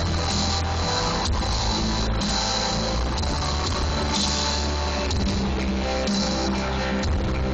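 A rock band playing an instrumental passage, with electric guitar over bass and drums, steady and loud.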